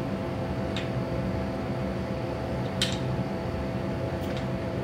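Steady mechanical hum with a constant tone from a laser engraving machine's running equipment, with three light wooden clacks as engraved wood slices are stacked by hand, the loudest about three seconds in.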